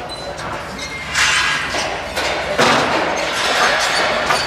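Clatter and thuds of metal deck panels and aluminium truss frames being handled and set down, with clinks of metal on metal.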